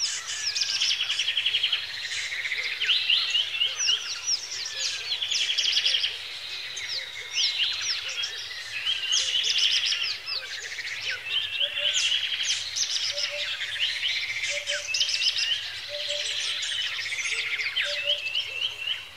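Several birds calling and singing at once: overlapping rapid trills and quick chirps. In the second half a short, soft low note repeats about once a second beneath them.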